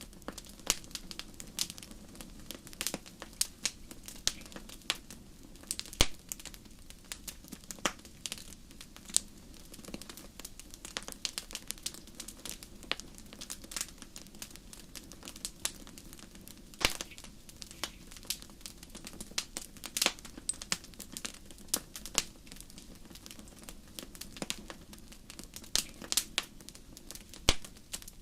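Fire crackling, with dense irregular pops and snaps, a few much louder than the rest, over a steady low rumble.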